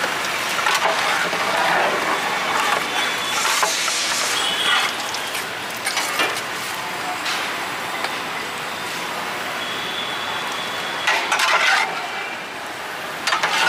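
Outdoor street noise with traffic, and a long metal ladle stirring daal in a large metal cooking pot, knocking and clinking against the pot now and then.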